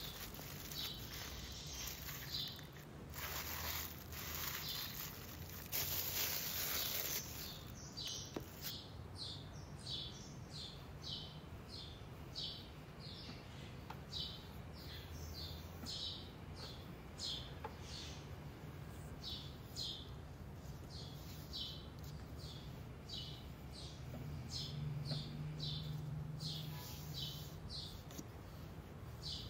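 Crinkling of plastic cling wrap as pie dough is unwrapped, in two noisy rushes during the first several seconds. After that a bird chirps a short high note over and over, roughly once a second, with a faint low hum beneath.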